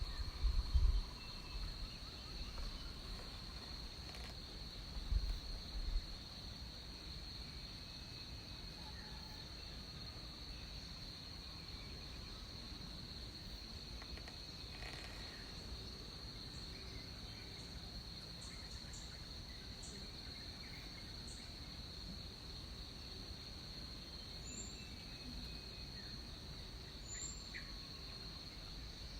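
Rainforest insect chorus: a steady, high, unbroken trill of insects, with a few faint bird chirps scattered through. Short low rumbles in the first second and again about five seconds in.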